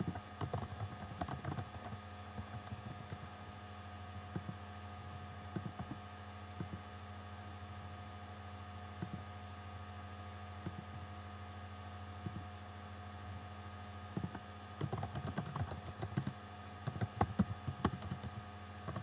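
Typing on a computer keyboard, in a quick run of keystrokes at the start and another near the end, with a few scattered single clicks between. A steady low electrical hum runs underneath.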